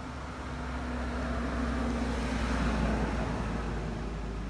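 A motor vehicle passing: a steady engine hum that grows louder to a peak about three seconds in, then fades.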